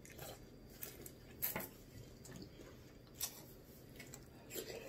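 Faint eating sounds: chewing of a mouthful of cereal and a few soft clicks of a metal spoon, spaced about a second or two apart.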